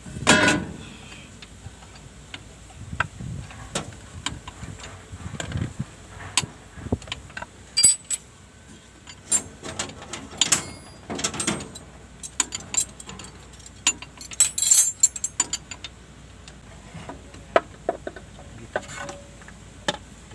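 Metal hand tools and parts clinking and clanking at irregular intervals, with a louder knock about half a second in and busier clusters of clinks later on.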